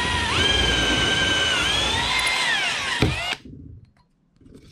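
Electric drill with a sharp 3/16-inch cobalt bit drilling out a corroded aluminum hinge rivet. The motor whine steps up in pitch early, rises again midway, then sinks under load. A sharp click comes about three seconds in, and the drill stops just after.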